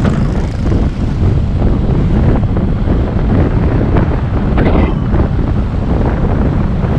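Loud wind buffeting the microphone of a camera on a moving motorbike: a steady, heavy rumble.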